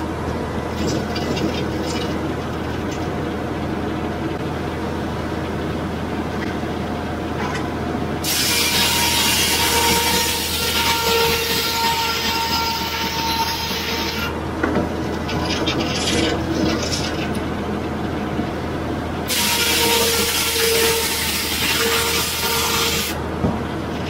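Sawmill's large circular head saw running steadily, cutting through a log twice: each pass, starting about 8 seconds in and again about 19 seconds in, adds a loud hiss of sawing with a faint whine and lasts a few seconds.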